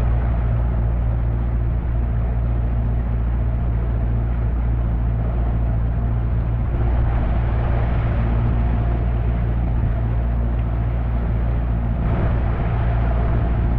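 Outboard motor of a 16-foot jon boat running at a steady cruising speed under way, an even drone with rushing noise over it.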